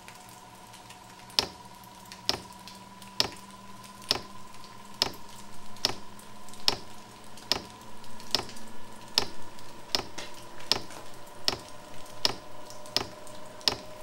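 XVentures portable diesel heater at start-up: its fuel dosing pump ticks a little more than once a second, the ticks slowly quickening as it pumps diesel to the burner, over the steady whine of the running combustion fan.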